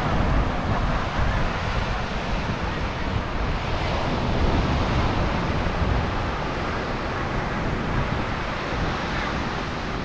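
Steady rush of surf as small waves break and wash up a sandy shore, with wind noise on the microphone.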